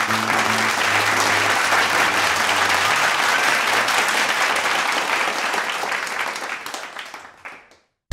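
Audience applauding as a song ends, with the last guitar chord still ringing under the clapping for the first few seconds. The applause fades out near the end.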